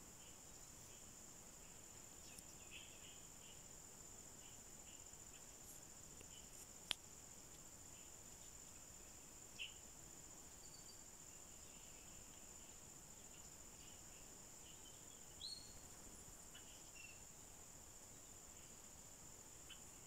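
Near silence: faint room tone with a steady high-pitched whine, scattered faint chirps and ticks, and one sharp click about seven seconds in.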